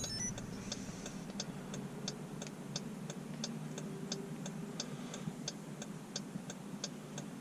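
Hazard-light flasher on a 2018 Jeep Grand Cherokee ticking steadily, about three clicks a second, with the ignition off during key programming. A short falling electronic chime sounds at the very start.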